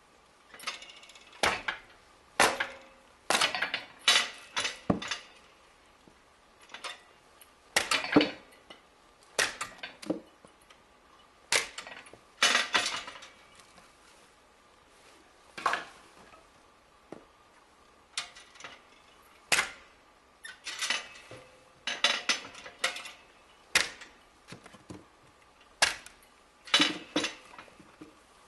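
Firewood being split on a homemade splitting machine: a series of sharp knocks and cracks every one to two seconds as short logs are struck and split, with the split pieces knocking together.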